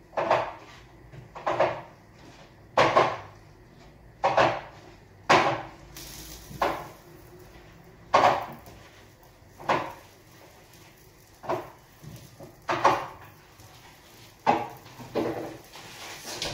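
Kitchen dishes and utensils clattering: about a dozen separate sharp knocks and clinks, spaced irregularly about a second or so apart.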